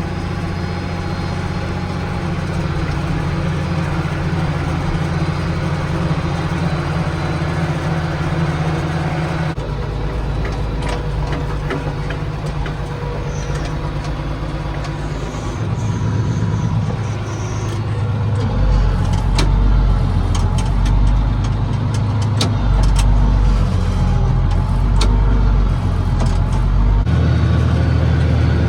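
A vehicle engine running steadily while under way. Its low note changes several times, about ten seconds in and again around fifteen to nineteen seconds in, with light clicks and rattles over it.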